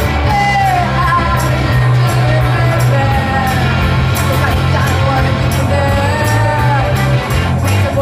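Live rock band playing at full volume: electric guitars, bass and drums with regular cymbal hits, and a lead vocalist singing a melody over it.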